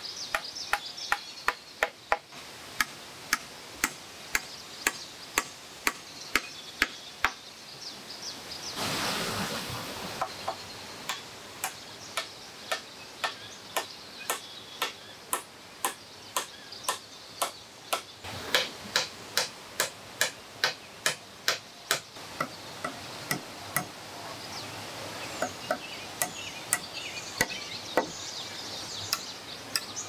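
Hatchet chopping into a wooden log in a steady run of sharp blows, about two a second.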